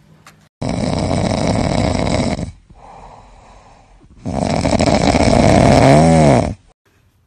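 Siberian husky snoring loudly in its sleep: two long snores, with a softer breath between them. The second snore ends in a brief rising-and-falling tone.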